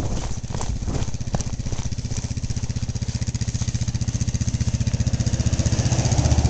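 ATV engine running steadily at low speed, its even low pulsing slowly growing louder, with a few brief knocks in the first second or so.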